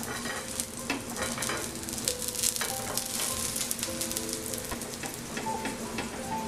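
Ghee sizzling and crackling on a hot iron tawa as it is spooned onto an aloo paratha and spread over it with a spoon, with faint background music.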